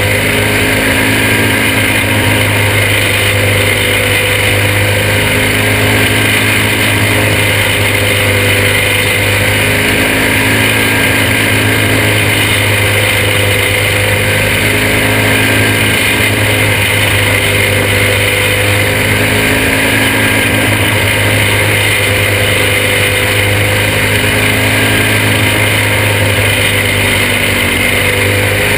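Junior champ kart's small engine running loud and steady at racing speed, heard from the driver's seat, its pitch rising and falling gently every few seconds through the corners.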